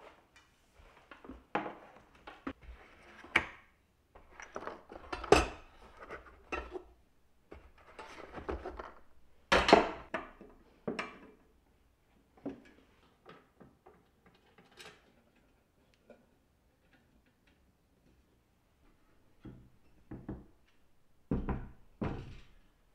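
Metal parts of a white steel countertop organizer clinking and knocking as the frame and panels are handled and fitted together by hand, in irregular knocks. They stop for a few seconds, then a few more come near the end.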